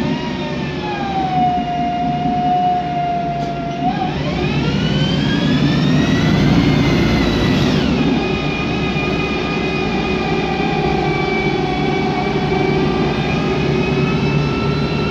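Whine of the Voith DIWA 864.3 automatic gearbox in a 2008 MAN Lion's Classic city bus, heard from inside the passenger cabin over the low running of its MAN E2876 CNG engine. The whine holds a steady pitch, climbs as the bus accelerates, drops sharply at an upshift about halfway through, then climbs slowly again.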